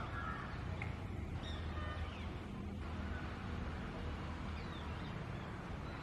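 Scattered short bird calls and chirps, a few brief downward-sliding notes among them, over a steady low background rumble.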